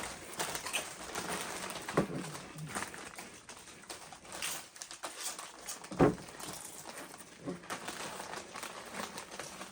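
Chewing and crunching of Doritos tortilla chips, with faint crinkling, and a short low sound about six seconds in.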